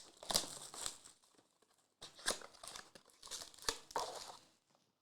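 Plastic wrapping on trading-card boxes and packs crinkling and tearing in the hands, in about three bouts with short pauses between them.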